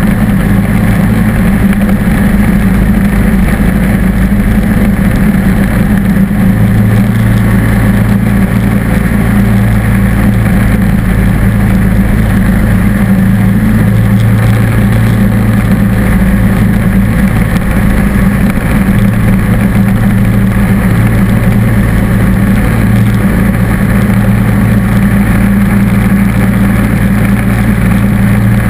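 John Deere D140 lawn tractor engine running steadily at working speed while its snow blower attachment throws snow. The hum deepens slightly about six seconds in as the load changes.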